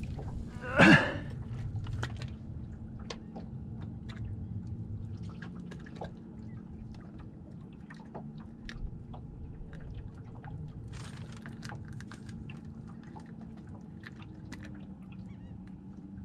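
Small clicks, taps and rustles of hands handling a freshly caught fish and fishing tackle, over a faint steady hum. A short, loud rising squeak comes about a second in.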